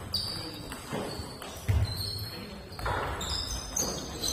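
Echoing sports-hall ambience between table tennis points: a dull thump just under two seconds in, a few lighter knocks and faint voices.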